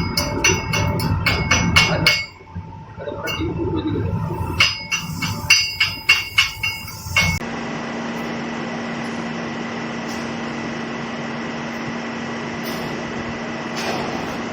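Metalwork during stick welding: a dense run of crackles and knocks, then a string of separate sharp metal clinks with a ringing tail. About halfway through it cuts off abruptly and gives way to a steady hum with a constant low tone.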